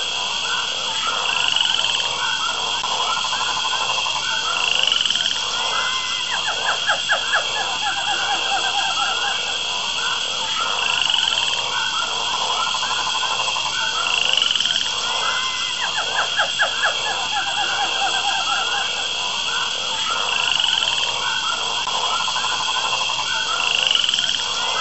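Dense rainforest animal chorus with steady high shrill tones, trains of rapid pulsed calls, and a short rising call that comes back every few seconds.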